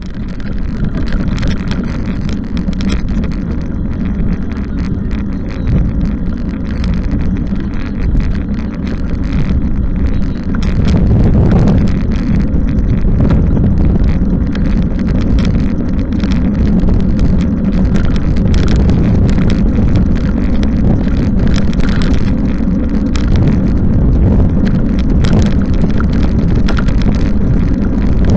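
Wind rushing over the microphone while riding a bicycle in the rain, over tyre and road noise, with many short knocks and clicks throughout.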